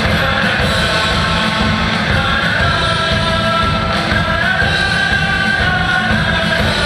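Recorded intro music with singing, played loud and steady over a theater's PA system.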